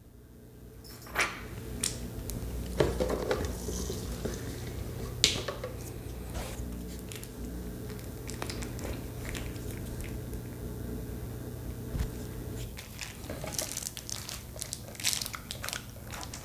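Plastic wrap around a raw brisket crinkling and rustling as a marinade injector needle is pushed through it and the meat is pressed by hand. Scattered small clicks and squishes come from the handling.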